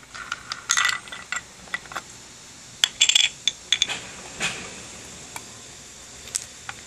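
Clicks, knocks and rattles of a plastic dust shroud being handled on and taken off a Bosch 100 mm angle grinder, in two quick bunches about a second and three seconds in, then a short scrape and a few scattered ticks.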